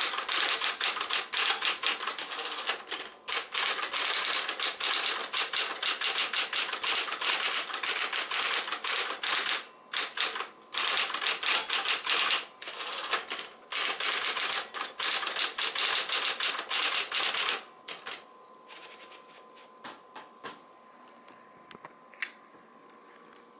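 Singer T-82 electric typewriter (a rebadged Smith-Corona Coronet) being typed on in fast, continuous runs of key strikes with brief pauses. The typing stops about three-quarters of the way through, leaving a faint steady hum and a few scattered clicks.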